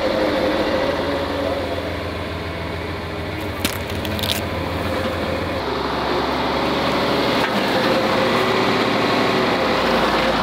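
John Deere tractor's engine running steadily as its front-loader hay spear is driven forward, with a short knock about three and a half seconds in. The engine note drops a little about halfway through and again near the end.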